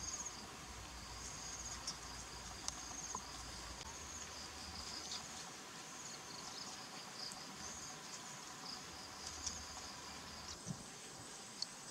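Insects chirping in faint, short, high trills that repeat every second or so.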